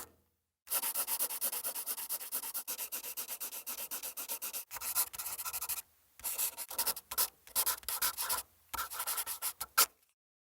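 Fast, even scratching strokes for about five seconds, then shorter irregular clusters of strokes, cutting off suddenly near the end.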